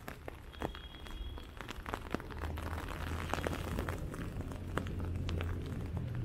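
Heavy hail falling: many irregular sharp ticks of hailstones striking hard surfaces. A steady low rumble underneath grows louder about two seconds in.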